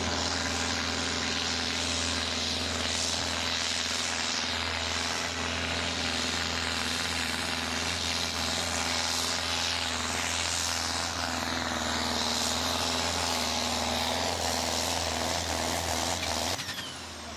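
Pulling tractor's diesel engine running flat out under heavy load as it drags a weight-transfer sled, steady throughout, then dropping off suddenly about a second before the end as the pull finishes.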